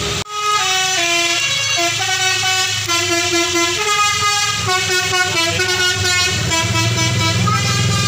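Tour bus's musical 'telolet basuri' air horn playing a quick tune of many short notes that starts abruptly, with the bus's engine running underneath and growing louder near the end as the bus passes close.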